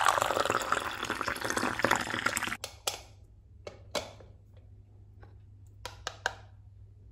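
Juice poured from a small plastic toy blender jug into a little plastic cup, a steady splashing stream that stops abruptly about two and a half seconds in. Then a few light plastic clicks and knocks as the jug is set back on its base and the toy pieces are handled.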